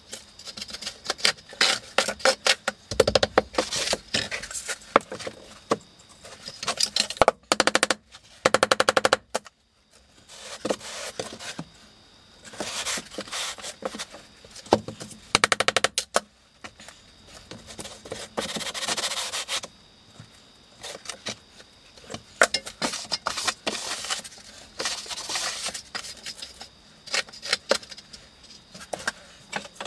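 Hand float scraping and tapping across stiff sand-cement deck mud. It makes gritty strokes broken by sharp clicks, with a fast rattling run of clicks about seven to nine seconds in.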